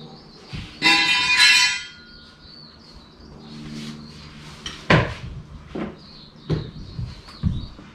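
Metal tools and engine parts being handled: a bright metallic clang that rings for nearly a second, about a second in, then several separate knocks and clunks in the second half.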